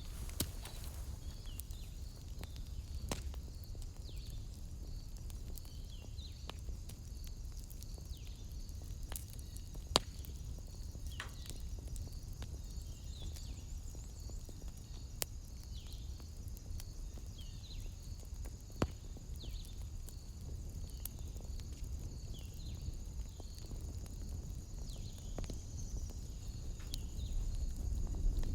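Wood fire burning with a low steady rumble and scattered sharp crackles and pops, the loudest about a third of the way in and again past halfway. A steady high-pitched pulsing chirp runs underneath throughout.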